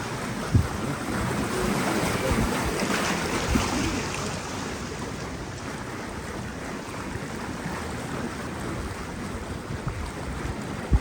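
Wind rumbling on the microphone aboard a small open canal tour boat, over a steady rush of water. A short thump about half a second in is the loudest moment.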